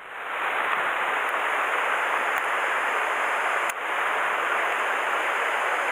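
Shallow mountain stream running over stones: a steady rush of water.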